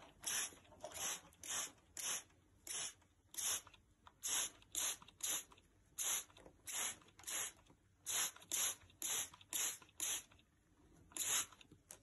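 Short hissing bursts at a steady pace of about two a second, each the same, while a cockatiel takes a bath; they stop near the end.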